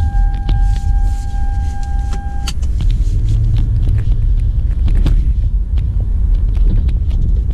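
Cabin noise of a 2006 Toyota Avalon being driven: a steady low rumble from the road and engine. A steady high tone sounds at the start and cuts off with a click about two and a half seconds in.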